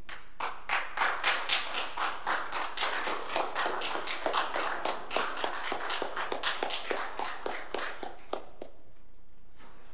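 A small group applauding: dense, irregular hand claps for about eight seconds, thinning to a few scattered claps before stopping.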